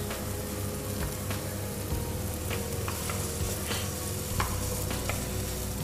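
Diced pepper and carrot sizzling in hot oil in a frying pan, stirred with a wooden spoon that gives a few light knocks against the pan.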